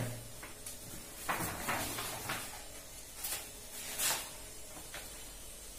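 Sheets of a printed exam question paper being handled, a handful of short rustles and crinkles.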